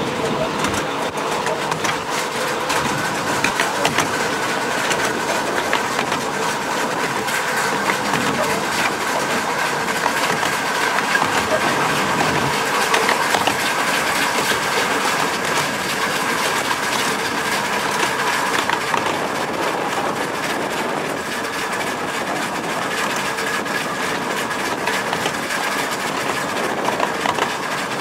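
A 7.25-inch gauge miniature railway train running along the track, with frequent clicks of the wheels over the rail joints. A faint steady high whine runs under the running noise, stronger after about eight seconds.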